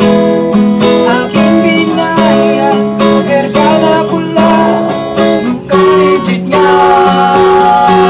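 Acoustic guitar strummed in a steady rhythm, with a man singing along in Tagalog.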